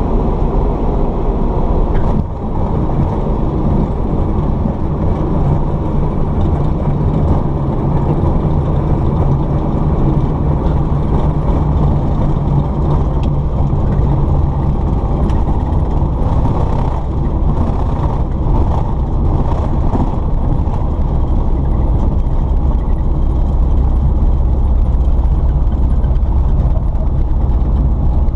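Light aircraft's piston engine running steadily, a loud low drone heard from inside the cabin.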